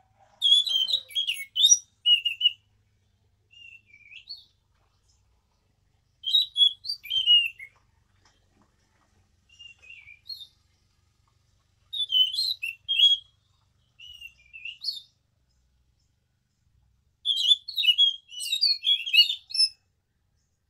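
Caged anis macan thrush singing: four loud bursts of fast, varied chirping notes, roughly every five to six seconds, with a quieter short phrase between each pair.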